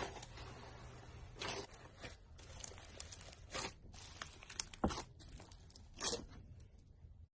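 Slime being squeezed and stretched by hand, giving irregular crunchy crackles and pops, the loudest about five seconds in.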